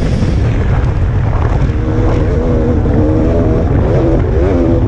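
Dirt bike engine running hard on a hill climb, its pitch holding steady and then rising and dropping near the end as the throttle is worked, over a heavy low rumble.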